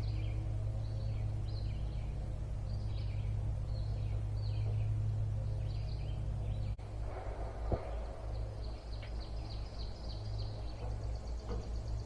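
Small birds chirping in short repeated calls over a steady low hum; the hum changes abruptly about two-thirds of the way through, with a single knock just after.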